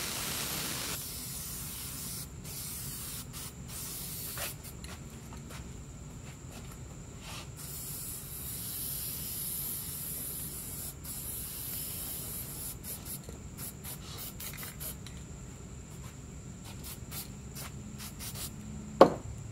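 Aerosol spray paint can hissing in uneven bursts as green paint is sprayed onto a plywood seat, with one sharp click near the end.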